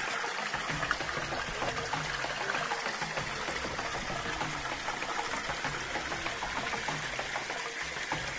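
Shallow rocky stream running steadily, with water pouring over the stones.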